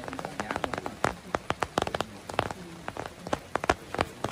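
Rain falling, its drops hitting a surface close by as irregular sharp taps.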